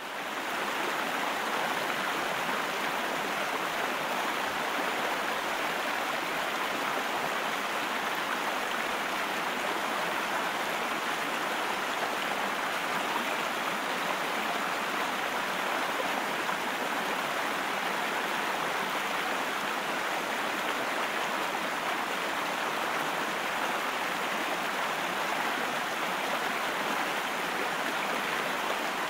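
Steady rush of white water pouring down the face of a sloping weir, an even, unbroken sound.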